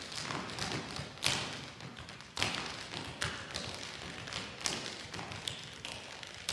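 Tap shoes of a line of dancers striking a stage floor in unison: a run of sharp metal clicks with several louder accented strikes spread through, with no music.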